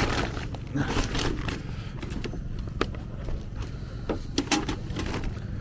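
Handling noise of items being packed and moved: scattered scrapes, rustles and clicks over a low rumble, with faint voices in the background.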